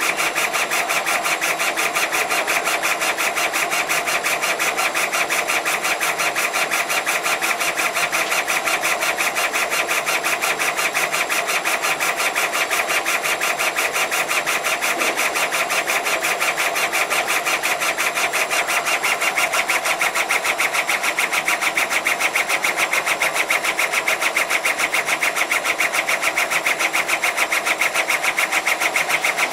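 Four-head laser cutting machine running as it cuts clear acrylic sheet: a steady machine noise made of rapid, evenly repeating pulses that hold at the same level throughout.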